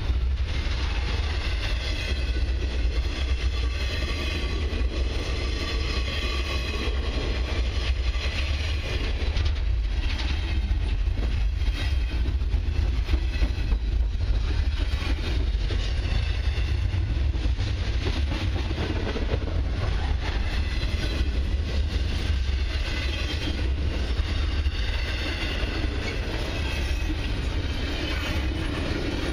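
A long intermodal freight train's well cars rolling steadily past: a continuous deep rumble of steel wheels on rail, with irregular clicks and a faint high metallic ringing from the wheels.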